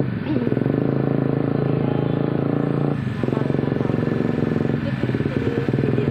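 A small engine running steadily with an even firing beat, easing off briefly about three seconds in and again near five seconds.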